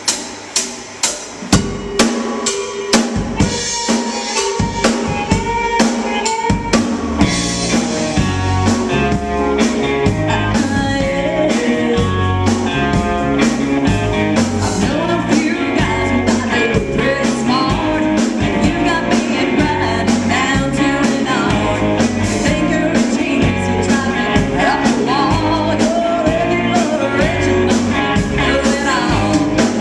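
Band playing a song: sharp drum hits about twice a second open it, then the full band comes in after about two seconds with drums, bass and other instruments playing a steady beat.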